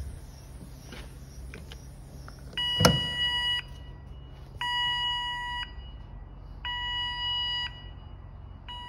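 Control panel alarm buzzer beeping, about one second on and one second off, starting about a third of the way in, over a low steady hum. A single sharp knock, the loudest sound, comes just after the first beep begins.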